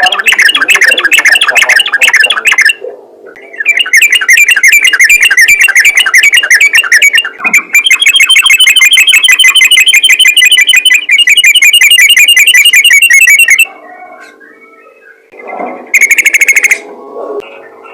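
Yellow-vented bulbul (trucukan) singing loudly in long runs of rapid, repeated chattering notes. The longest run lasts about ten seconds, and a short burst comes near the end. A faint steady hum lies underneath.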